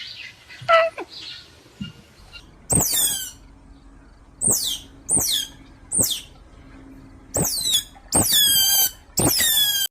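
An animal's high-pitched calls: a string of short squeaks, each sliding quickly down in pitch, starting about three seconds in, with the last two drawn out longer.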